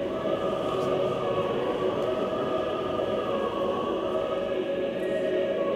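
A choir singing slow, long-held chords.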